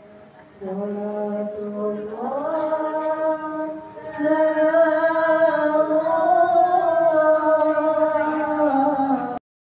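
Slow, chant-like singing with long held notes that glide from pitch to pitch. It cuts off suddenly shortly before the end.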